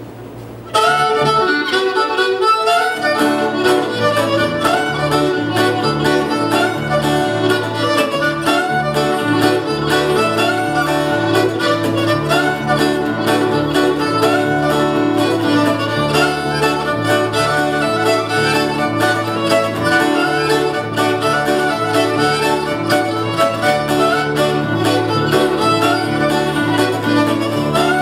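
Old-time fiddle tune played fast on fiddle, backed by strummed acoustic guitar and a bass guitar walking the beat. The band kicks in about a second in.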